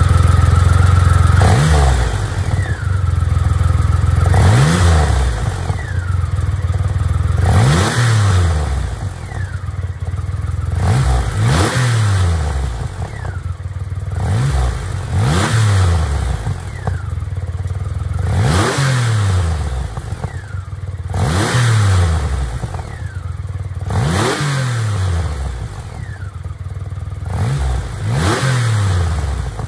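Triumph Rocket 3 Classic's three-cylinder engine blipped again and again through its stock mufflers. About a dozen quick revs, each rising sharply and falling straight back to idle, roughly every two to three seconds.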